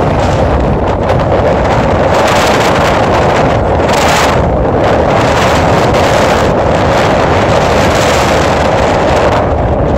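Wind rushing over the microphone of a vehicle driving along a gravel road, mixed with steady road and tyre noise. The rush swells and eases every second or two.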